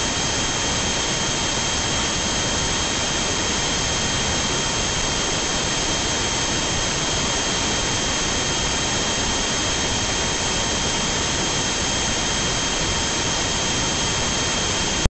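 Dashcam recording hiss: a loud, perfectly steady hiss with thin high whining tones laid over it, unchanging until it cuts off suddenly near the end.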